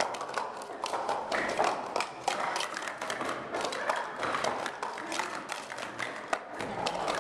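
Plastic sport-stacking cups clicking and clattering in a fast, irregular stream as they are stacked up and down on a stacking mat.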